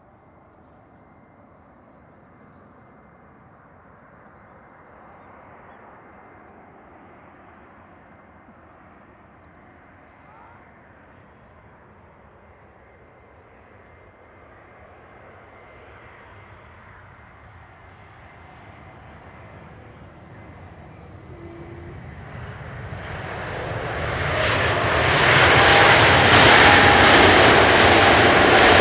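Pratt & Whitney PW1127G-JM geared turbofan engines of an Airbus A320neo airliner landing: a faint, slowly swelling jet rumble through the approach and touchdown. From about three-quarters of the way in it becomes loud as the aircraft passes close on its landing roll, with a steady whine over the roar.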